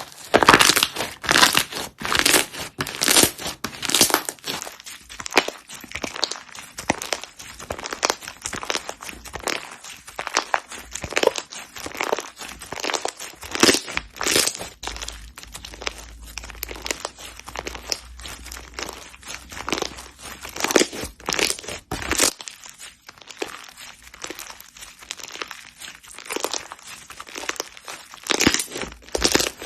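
Slime being squeezed, pressed and pulled by hand, giving a constant run of irregular crackling and crunching pops.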